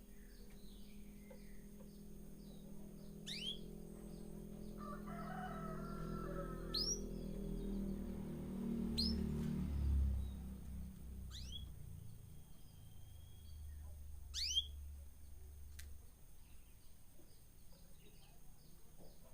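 Caged birds calling: several sharp, quickly falling whistled chirps a few seconds apart over runs of rapid, repeated high chips. A low rumble swells through the middle and fades out.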